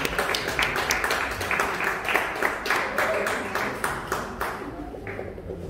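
Audience applauding with many separate, distinct claps, dying away and stopping about four and a half seconds in.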